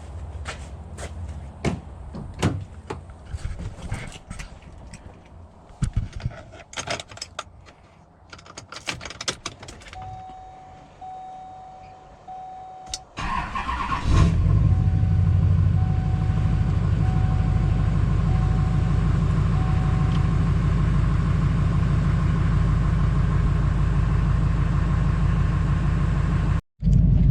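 Knocks and clicks of getting into the truck cab, then a dashboard chime beeping steadily. About fourteen seconds in, the LMM Duramax 6.6 L V8 turbo-diesel cranks briefly and catches on a cold start, then idles loudly and steadily with an even diesel pulse.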